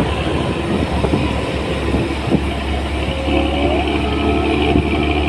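Intercity bus exhaust with a deep, rough 'ngorok' (snoring) note, running steadily and loudly; a higher drone joins about three seconds in.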